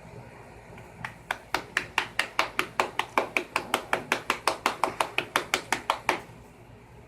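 A fast, even run of sharp taps, about five a second, starting about a second in and stopping after about five seconds.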